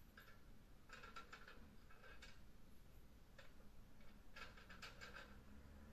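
Faint, distant metallic clicking and tapping from a triangular wheel clamp being forced open with a tool, in short clusters of rapid clicks: about a second in, around two seconds, and a denser run near the end.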